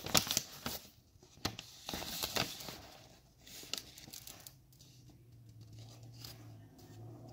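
A paper packing slip rustling and crinkling as it is unfolded and handled, in a run of crackly bursts over the first two or three seconds that then dies down. A faint steady low hum follows in the second half.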